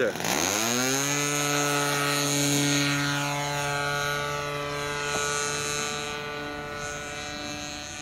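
O.S. Max glow engine of a Seagull Extra 300S RC aerobatic plane opening up for takeoff, its pitch rising over the first second, then running steadily at high throttle as the plane climbs away and the sound slowly fades. The throttle is set too high, near full throttle.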